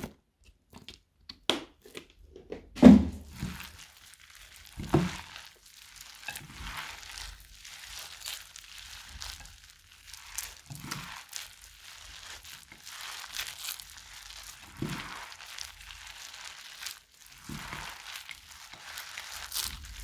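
Slime mixed with plastic bag and foam brick pieces being squeezed and kneaded by hand. It crinkles and crackles continuously, with a few short, low squelches.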